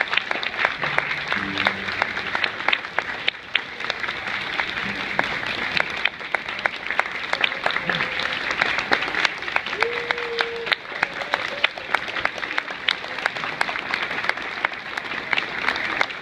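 Audience applauding steadily, many hands clapping at once, with a few voices among the clapping.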